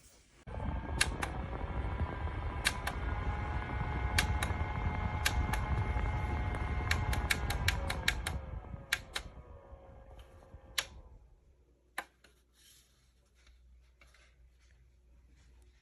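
WSKEN battery-powered desk fan switching on and running fast, a steady whoosh of air with a motor whine, under many sharp clicks. About eight seconds in the motor slows, its whine falling in pitch, and the fan fades out. A few more clicks follow.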